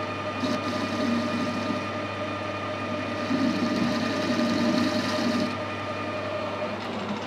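Metal lathe running, its chuck turning an aluminium bar against the cutting tool: a steady machine whine, with a rougher cutting hiss from about three seconds in that eases off after five seconds. The aluminium is a poor, gummy grade that cuts badly.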